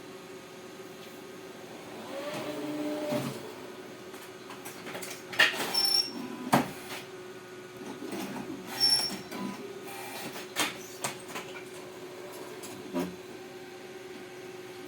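Steady electrical hum with a series of sharp mechanical clicks and clunks, the loudest about five and a half and six and a half seconds in, and a short whirring tone about two seconds in.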